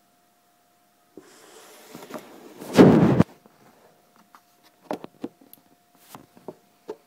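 Handling noise on the recording device: a hand rubbing and scraping over it, which swells to a loud, brief scrape about three seconds in, followed by a few scattered light taps and knocks.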